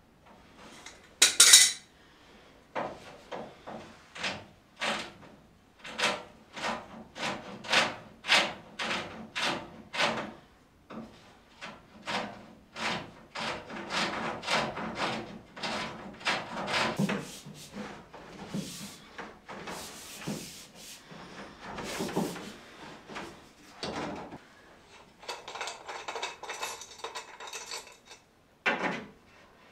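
Hand work on plumbing pipes and fittings: a run of short scraping strokes, about two a second, then denser rubbing and clatter of pipe and tools, with a sharp knock about a second and a half in and another near the end.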